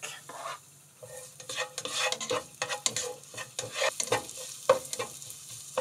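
Minced garlic sizzling in foaming butter in a nonstick frying pan while a slotted spatula stirs it, scraping and tapping irregularly against the pan from about a second in.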